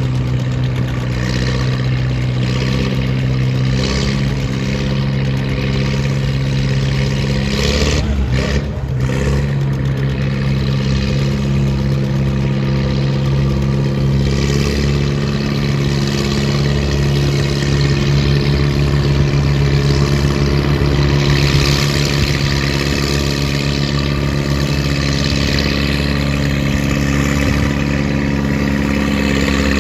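Antique farm tractor engine running steadily under heavy load as it pulls a weight-transfer sled, holding one even note. About eight seconds in, the sound briefly breaks up, and from then on a deeper rumble runs beneath the engine.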